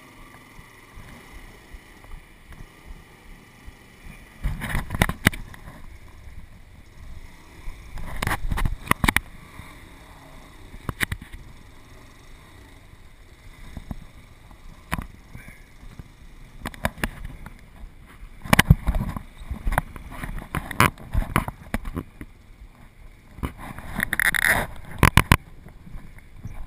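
Creek water running steadily over rocks, broken by irregular loud knocks and rustles.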